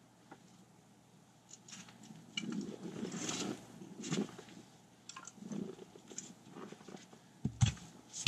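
Firewood being split with an axe on a chopping block in the snow: faint crunching and small knocks as the log is set up, then sharp thunks of the axe biting into the wood near the end.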